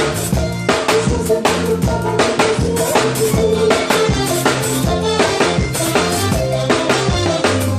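Live band playing an upbeat instrumental groove during a soundcheck: steady drum-kit beat with bass drum and rimshots over held bass and keyboard notes.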